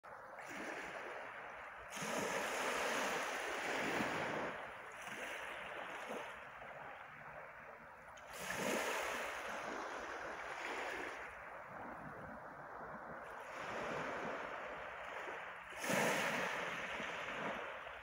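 Small sea waves breaking and washing over a pebble shore, the surf swelling three times about six to eight seconds apart.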